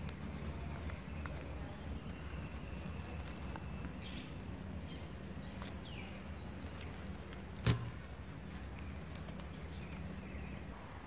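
Soft handling sounds of fingers pushing globe amaranth flowers on thin sticks into the leaves of a galangal-leaf krathong: small rustles and faint clicks, with one sharper knock a little past the middle. A steady low hum lies underneath.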